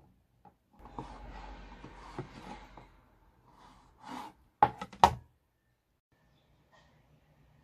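Kitchen prep handling sounds: about two seconds of soft rustling with small clicks, a brief scrape, then two sharp knocks about half a second apart.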